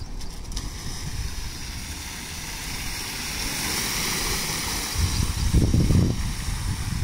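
Tyres of a Yakuza Poppy electric scooter hissing and splashing through shallow standing water on a road, the spray swelling a few seconds in. A low rumble runs underneath, loudest about five to six seconds in.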